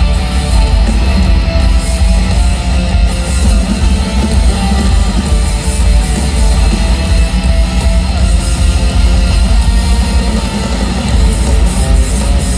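Live rock band playing loud, with electric guitar over a heavy, dense low end.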